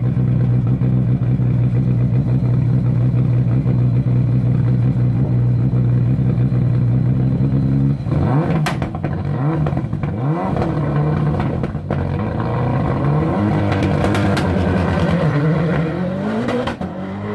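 Ford Fiesta rally car's engine held at steady revs on the start line, then launching hard at about eight seconds in. The revs climb and drop again and again through quick gear changes as the car pulls away, with a few sharp cracks.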